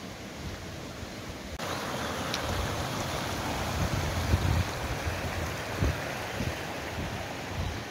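Small mountain brook running over stones, a steady rushing that comes in suddenly about a second and a half in. A few low thumps sound under it.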